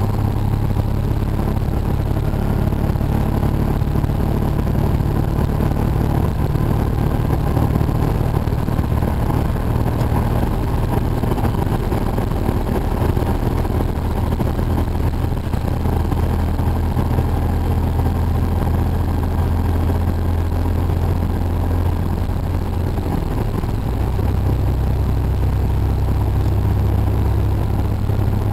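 Semi truck's diesel engine droning with tyre and road noise inside the cab. The engine note drops in pitch about halfway through and shifts again near the end.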